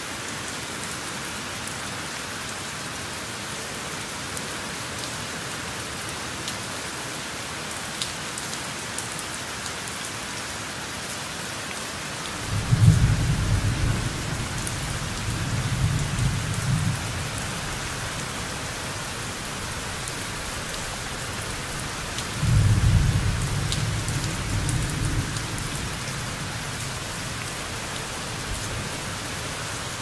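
Steady rain with two low rumbles of thunder. The first starts about twelve seconds in and is the loudest. The second comes about ten seconds later. Each rolls on for a few seconds.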